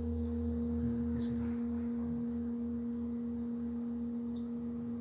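Large singing bowl ringing on after being struck, a steady low hum with a clear higher overtone above it, its lowest part pulsing slowly in a regular wobble.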